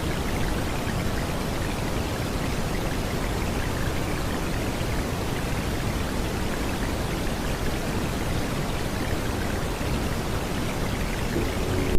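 Steady rain sound effect: an even, grainy hiss of falling rain with no change in level.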